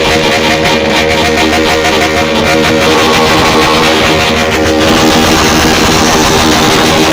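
Loud music led by guitar, with a change in texture about five seconds in.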